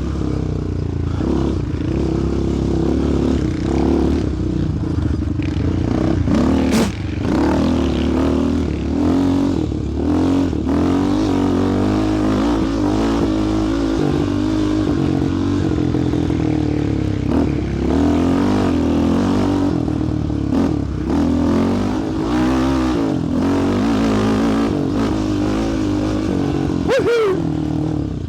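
Single-cylinder four-stroke sport quad engine running under load, its pitch rising and falling with the throttle, with short knocks and rattles over rough ground. A quick rev rises and falls near the end.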